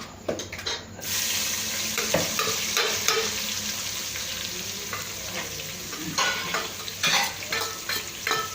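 Food frying in hot oil in a pan, a steady sizzle that starts suddenly about a second in, with a spoon stirring and scraping against the pan now and then.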